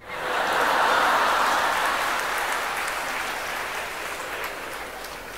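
A large audience laughing together, breaking out at once, peaking about a second in, then slowly dying away.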